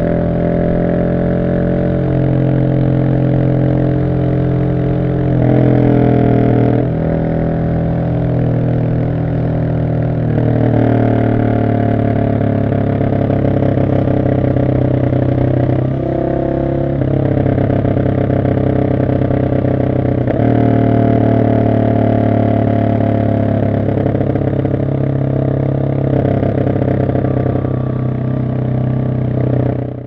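Husqvarna 701 supermoto's single-cylinder engine running at road speed through an Arrow exhaust with the catalyst removed and the dB killer fitted. The engine note holds mostly steady, with a few brief rises and dips in engine speed about six, ten, sixteen and twenty seconds in, and fades out at the very end.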